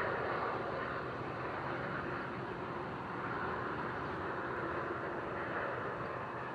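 Steady, distant vehicle noise, a continuous rumbling hiss that eases off a little in the first second and then holds level.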